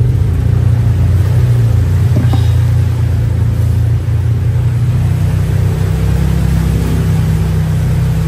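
Off-road vehicle engine running under way, a loud, steady low engine sound that dips briefly about four seconds in.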